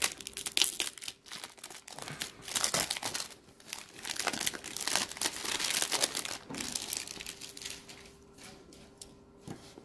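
Clear cellophane wrapping being slit with a pocket knife and peeled off a perfume box, crinkling and tearing in irregular fits that die down near the end.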